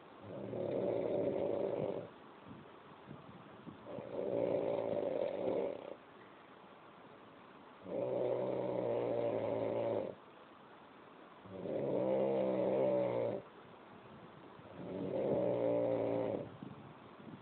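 Steady rhythmic snoring: five long, pitched snores of about two seconds each, coming about every three and a half to four seconds.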